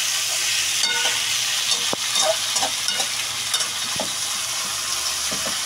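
Beef skin with onion, ginger and green onion sautéing in oil in a wok: a steady sizzle, with a spatula stirring and scraping and clicking against the pan now and then.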